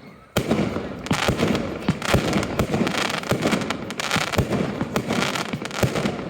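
Fireworks display: after a brief lull, a sudden loud bang about half a second in sets off a dense barrage of bangs and crackling that keeps going.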